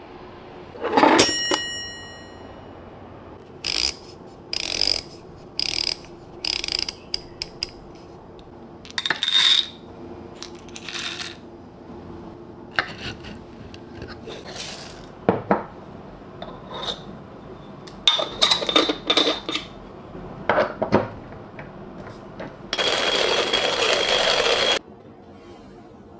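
Metal parts of a hand coffee grinder being handled and fitted together. A ringing metallic clink comes about a second in, then a run of sharp clicks and clatters, then a steady rushing noise lasting about two seconds near the end.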